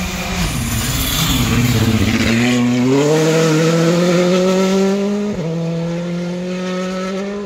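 Rally car engine at full throttle on a gravel stage: the note falls at first with gravel hiss, then climbs steadily as the car accelerates, with a short dip for an upshift about five and a half seconds in before it climbs again.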